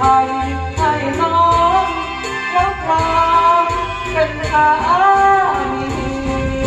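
A man singing a Thai song into a microphone over a backing music track, amplified through loudspeakers. The melody holds long notes.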